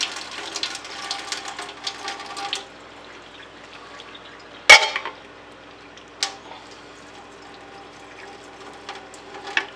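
Pasta water pouring from a tipped saucepan past its lid into a stainless-steel sink, splashing for about two and a half seconds before tapering to a faint trickle. A sharp knock comes near the middle, and a lighter one follows a moment later.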